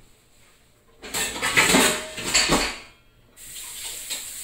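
About a second in, roughly two seconds of loud rustling and clattering from handling close to the microphone. From about three and a half seconds in there is a steady faint hiss.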